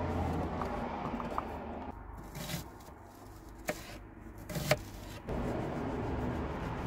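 Kitchen knife cutting chestnut mushrooms and a red onion on a chopping board: soft slicing and scraping, with a few sharp taps of the blade on the board between about two and five seconds in.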